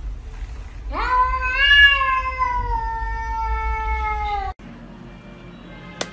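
A domestic cat's single long yowl, about three and a half seconds: it rises sharply at the start, then slides slowly down in pitch and cuts off suddenly. A faint hum and a sharp click follow near the end.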